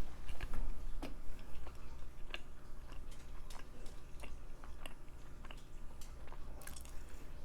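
A person chewing food close to the microphone, with irregular wet mouth clicks and smacks over a faint low steady hum.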